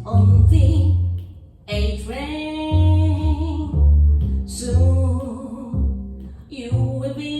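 A woman sings a jazz vocal over a plucked upright double bass, the bass sounding one low note after another under the sung line.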